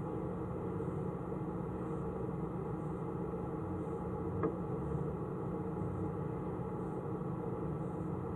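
A steady, muffled machine-like hum with hiss, and a single click about four and a half seconds in.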